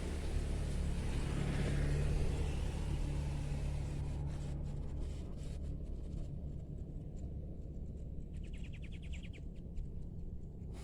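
A motor vehicle passes nearby, swelling and then fading over a steady low rumble. A few sharp clicks follow, then a brief run of rapid, even ticks near the end.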